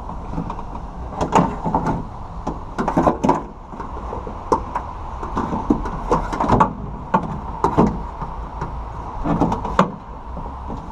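Replacement car window regulator clanking and scraping against the inside of the metal door shell as it is wiggled into place to line up its bolt holes: a string of irregular knocks and clicks over a steady hum.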